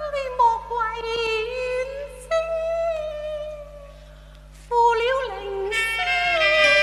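A woman singing Cantonese opera in long, sliding, ornamented notes with a wavering vibrato, in two phrases with a short break between them. Instrumental accompaniment comes in near the end.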